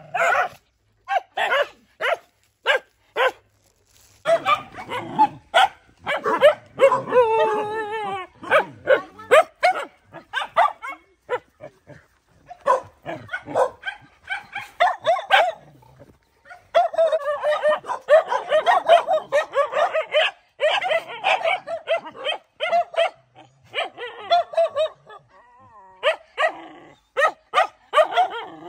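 Several dogs barking and yipping in a scuffle, in quick sharp barks, with a drawn-out falling whine about seven seconds in and a thick run of overlapping barks from many dogs around the middle.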